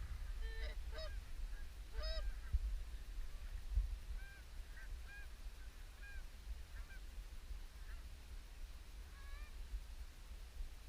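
Geese honking in short, separate calls: a few loud honks in the first couple of seconds, then fainter, scattered honks. A steady low rumble and a couple of dull thumps run underneath.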